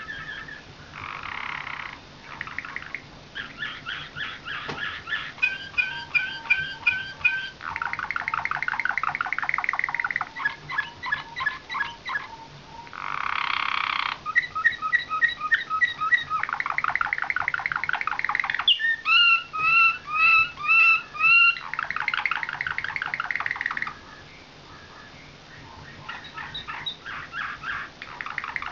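Slavujar (nightingale-song) canary singing a long, varied song of trilled tours, each a run of rapid repeated notes lasting a second or two. It drops off briefly about 24 seconds in, then starts again.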